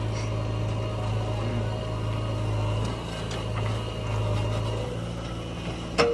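JCB 3DX backhoe loader's diesel engine running steadily with a low drone. A single sharp knock sounds about six seconds in.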